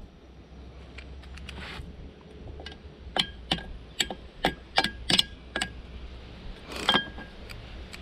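Steel hand tools tapping on steel: a socket extension held against the outboard's prop hub and struck with another socket to drive a cotter pin through the propeller shaft hole. It makes a string of about ten sharp metallic clinks, irregularly spaced, each ringing briefly, starting about a third of the way in.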